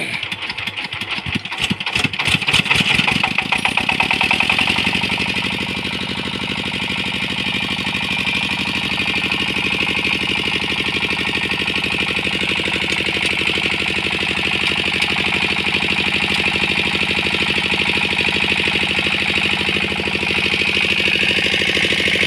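Single-cylinder diesel engine on a generator set, hand-cranked. Its firing beats quicken and grow louder as it catches over the first four seconds or so, then it settles into a steady, even chugging run.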